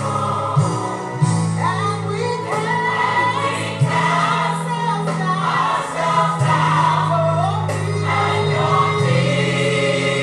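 Gospel choir music: voices singing together over sustained low chords that shift every second or two.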